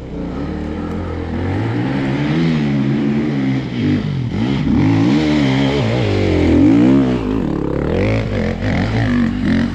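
Enduro motorcycle engine revving hard under load on a steep climb, its pitch rising and falling again and again, loudest about two-thirds of the way through.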